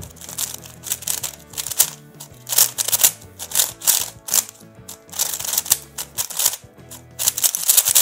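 A Diansheng M 3x3 speedcube being turned fast during a timed speedsolve: quick, uneven runs of plastic clicks and clacks, over background music.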